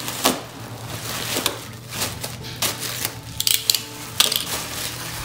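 Plastic wrapping crinkling and rustling as it is cut and pulled open with a utility knife, with a run of sharp clicks and taps about three and a half to four seconds in.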